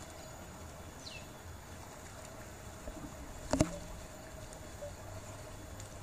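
Outdoor ambience with a faint steady hum. A brief falling chirp comes about a second in, and a single sharp knock about three and a half seconds in.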